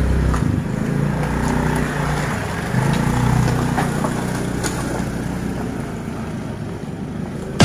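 Small automatic motor scooter engine running and revving as it pulls away, growing fainter near the end as it moves off.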